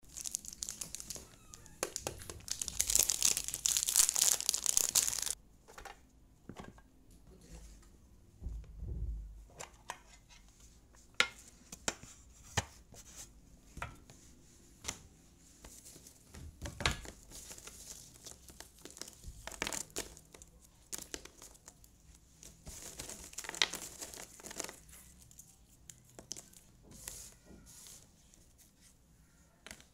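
Plastic wrapping crinkling and tearing as it comes off a tin puzzle box, loudest in the first five seconds. This is followed by scattered clicks and small clatters of the tin and the wooden jigsaw pieces being handled and tipped out onto the table.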